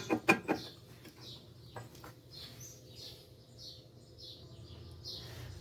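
A small bird chirping over and over, two or three short high chirps a second. A few sharp clicks or taps come at the start and another a little under two seconds in, from work on the car's front suspension.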